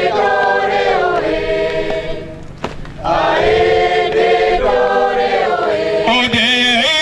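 Group of Gawi dancers singing a drawn-out chant response together, unaccompanied, the voices held on long notes. The singing breaks off briefly about two and a half seconds in and swells again, and near the end it changes to a higher, wavering line.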